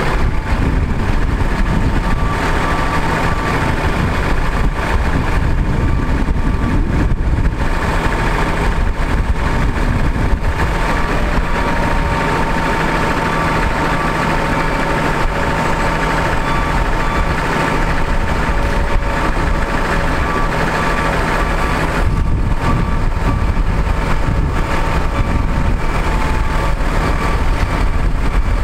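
A 2004 Freightliner FL80's Cummins ISC six-cylinder diesel running steadily while it powers the Prentice grapple's hydraulics as the boom swings, with a steady high whine over the engine rumble.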